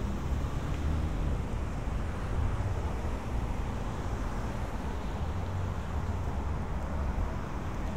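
Steady low rumble of downtown street traffic, with no single sound standing out.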